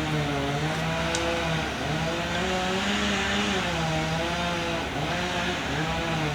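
Chainsaw running in the background, its pitch rising and falling in slow sweeps as it is throttled up and down while bucking a felled tree into rounds.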